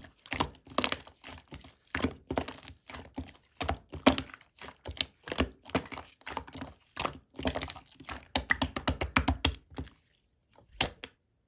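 Slime being pressed and poked by hand, giving an irregular run of sticky clicks and pops. They stop about ten seconds in, with one last short cluster just before the end.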